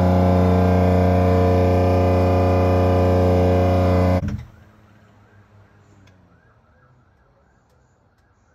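Nissan 350Z's 3.5-litre V6 idling steadily with hot sauce poured into its engine oil. It stops abruptly about four seconds in, leaving only faint background noise.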